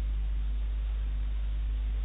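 Steady low electrical hum with a faint even hiss: the background noise of the recording, with no voice.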